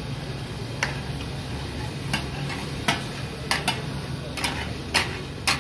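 Two metal spatulas clacking and scraping on a large round tawa griddle as chicken taka tak is chopped and tossed in sizzling oil. There are about eight sharp, uneven strikes, over a steady low hum.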